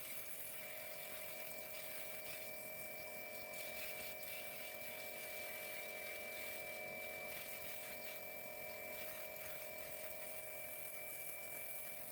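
Pressure washer pump running steadily, a faint even hiss of spray with a steady whine.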